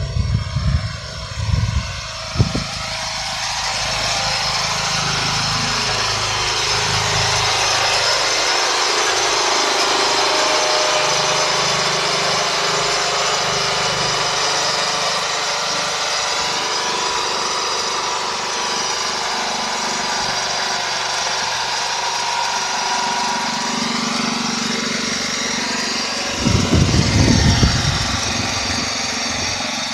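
A small engine running steadily, its pitch drifting slightly up and down. There are low rumbles near the start and again near the end.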